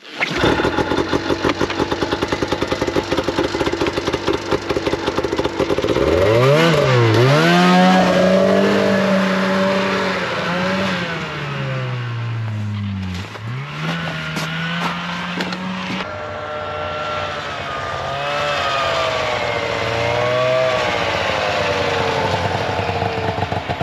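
Snowmobile engines: an engine runs with a fast, even pulse, then revs and rides off, its pitch rising and falling with the throttle. After an abrupt change about two-thirds through, it runs more steadily with a gently wavering pitch.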